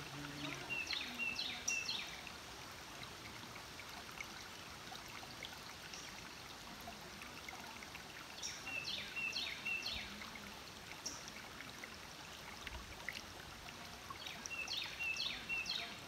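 Forest creek running steadily over rocks, with a songbird singing a short phrase of several down-slurred whistled notes three times: near the start, about halfway through and near the end.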